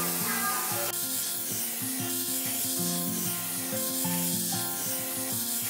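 Background music with held notes, over a steady rhythmic rubbing sound.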